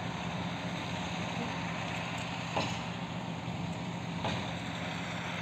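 Steady engine drone: a low hum under an even hiss that holds level throughout, with two faint knocks.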